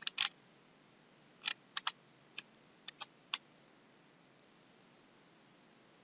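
Computer mouse clicking: about nine short, sharp clicks spread unevenly over the first three and a half seconds, then only faint hiss.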